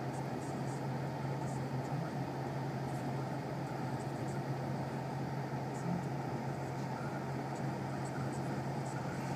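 Steady low engine drone with a noisy rumble that holds level throughout.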